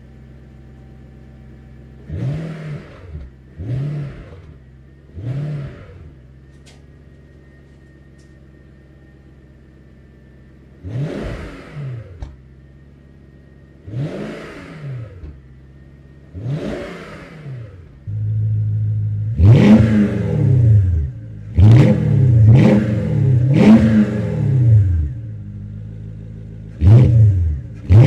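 1996 Jaguar XK8's 4.0-litre V8 idling cold, with about a dozen quick throttle blips that rise and fall in pitch: three short ones, then three to around 4000 rpm on the standard exhaust. About two-thirds in, the idle and the blips become much louder, with a burst of four blips and two more near the end.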